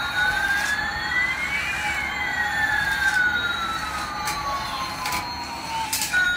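Toy Airbus A380's electronic sound effect: a synthetic siren-like tone that rises for about two seconds and then slowly falls, with a fainter second tone gliding the opposite way. A few short clicks sound under it.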